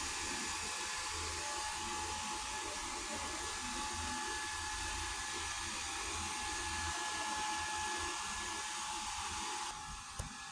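Steady mechanical whir with a faint high whine over it, which drops away shortly before the end, followed by a single click.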